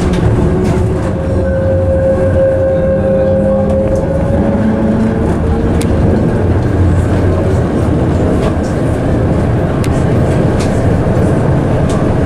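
Electric tram running on its rails with a steady rumble, and a faint whine from the motors in the first few seconds.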